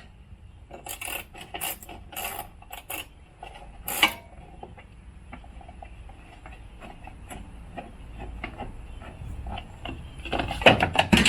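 Irregular clicks and knocks of hand tools and metal and plastic parts as the drive cover of a self-propelled Toro mower is worked loose. There is a louder knock about four seconds in and a burst of rattling knocks near the end.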